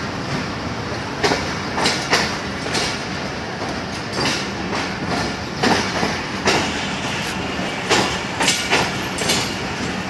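Pakistan Railways passenger coaches rolling past as the train departs: a steady rumble of the cars with irregular clicks and clacks of the wheels going over the rail joints.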